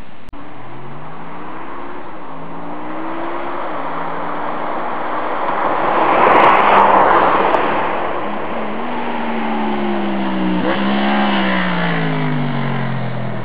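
Honda VFR750F V4 engine through a full RC30 racing exhaust, accelerating hard: its pitch climbs and drops back several times as it shifts gears. The bike gets loudest about six to seven seconds in, then revs up and falls again near the end.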